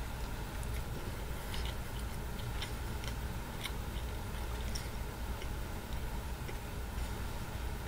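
Faint ticks, roughly once a second, over a steady low hum.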